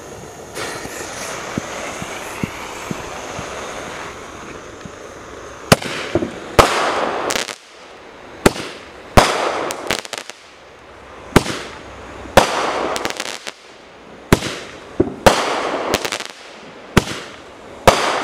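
Marine military Roman candle firing: a steady hiss for the first few seconds, then a run of sharp bangs roughly a second apart as its shots burst, each trailed by crackling.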